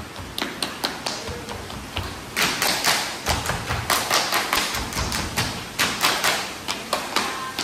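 Ratoh Jaroe body percussion: a row of kneeling dancers slapping their chests and thighs with their hands in quick unison, several sharp slaps a second. The slaps grow louder and denser a little over two seconds in.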